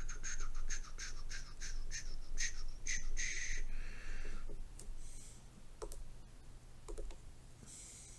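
Stylus nib scratching back and forth across a tablet's glass screen in quick scrubbing strokes, about four a second for the first three seconds or so, then a few slower, longer rubs and a couple of light taps.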